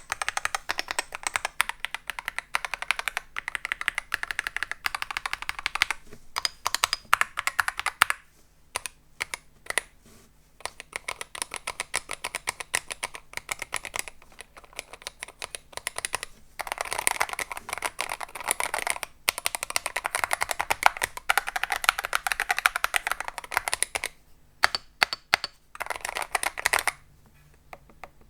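MonsGeek M1 V3 keyboard with magnetic Hall-effect switches being typed on, fully assembled with its sound-dampening layers inside. Fast runs of key clicks, with slower, scattered keystrokes in the middle; the typing stops just before the end.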